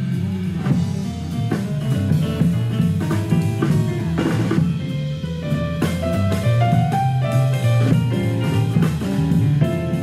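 Jazz band playing: a drum kit keeping a steady beat under moving bass notes and other instruments.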